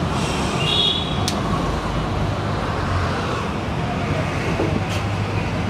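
Steady traffic noise from a busy road, with a brief high-pitched tone near the start and a single sharp click a little over a second in.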